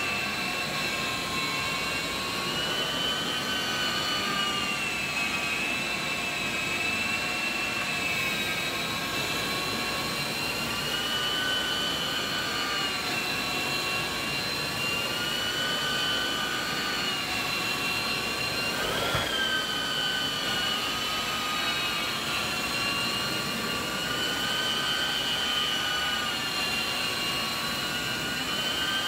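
Rotovac rotary extraction head cleaning carpet under suction from a truck-mounted hot water extraction unit: a steady high-pitched whine and hiss of air and water being drawn through the head and hose. The pitch wavers slowly up and down, with a brief upward blip about two-thirds of the way in.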